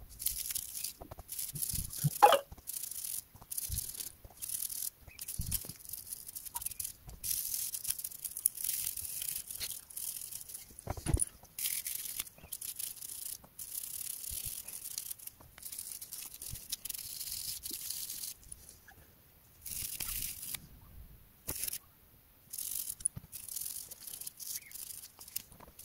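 Toothbrush bristles scrubbing a small 3D-printed resin wheel wet with isopropyl alcohol, a run of quick high-hissing brush strokes with short pauses between them. A couple of light knocks from handling the parts stand out about two seconds in and again near the middle.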